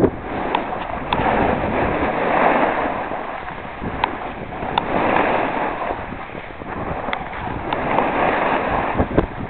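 Snowboards sliding and carving over packed snow, a rushing scrape that swells and fades with each turn, mixed with wind on the microphone.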